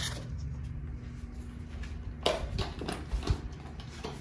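A few light knocks and rustles of handling, bunched about two to three and a half seconds in, over a low steady hum.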